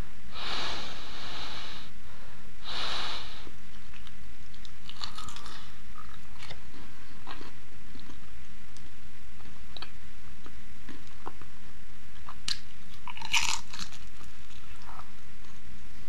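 Close-miked biting and chewing of a crispy fried chicken empanada. There are louder crunches twice in the first three seconds and again about thirteen seconds in, with sparse clicks of chewing between.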